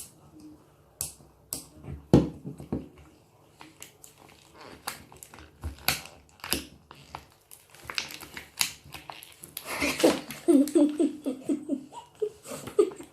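Plastic toy packaging being worked open by hand, a string of irregular clicks and crackles. A child giggles about ten seconds in.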